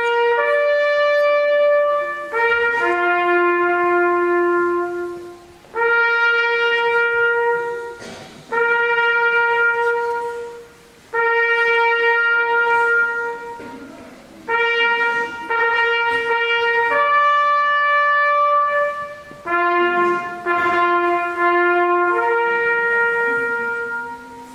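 Solo trumpet playing a slow call of long held notes in short phrases, with brief pauses between them and each phrase ending on a sustained note.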